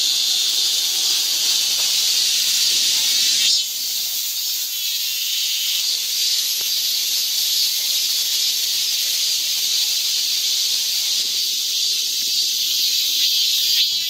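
Cicadas singing: a loud, high, hissing buzz that pulses for the first few seconds and then runs on as an even, continuous hiss.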